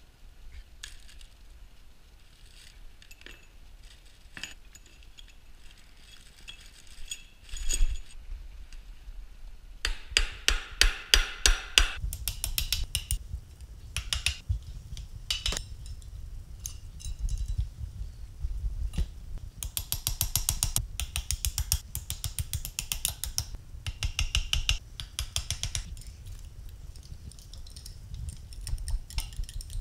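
Metal-on-metal tool work on a transfer case and motor adapter plate. At first there are only scattered clicks and one louder knock. After about ten seconds come runs of rapid, sharp metallic strikes and clinks, busiest a little past the middle.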